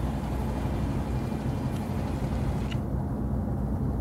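Steady low drone of a boat engine running under way on the river, with a faint tick about three quarters of the way through.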